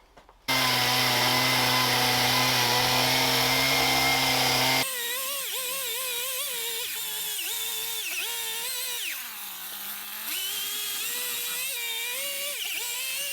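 Chainsaw running, cutting in abruptly about half a second in and running steadily at first. After about five seconds its pitch wavers up and down as the saw is worked along the wood shaving it into shape, dipping low for about a second near the middle.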